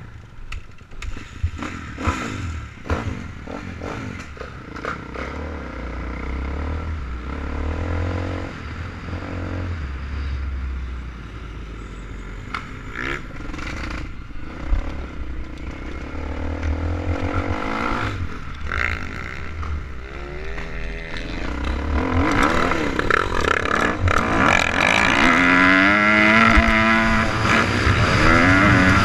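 Dirt bike engine heard close up from the rider: low, uneven running with scattered clanks and knocks as the bike moves off slowly, then from about two-thirds of the way through louder revving, its pitch rising and falling again and again as the rider accelerates and shifts down the track.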